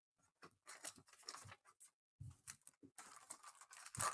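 Foil trading-card pack wrappers crinkling and rustling as they are handled and laid out, with a few light taps. It is faint and gets busier about three seconds in.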